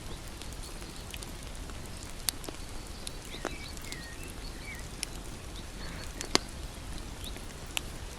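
Campfire burning: a steady low rumble of flames with scattered crackles and sharp pops of the wood, the loudest pop about six seconds in and another about two seconds in. A few faint short whistles come in around the middle.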